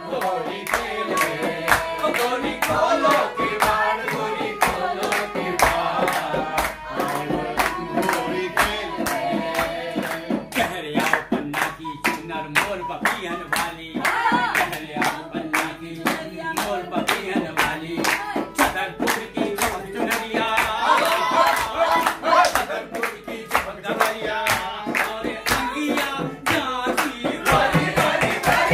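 A traditional Holi folk song (hori) played on a bamboo flute, with a group clapping steadily in time, about two to three claps a second, and voices singing along.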